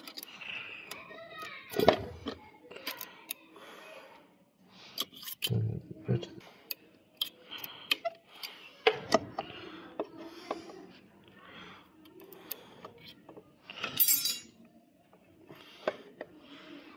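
Small metal parts and hand tools clinking and tapping as a six-cylinder inline diesel injection pump is being reassembled, in scattered irregular clicks and knocks.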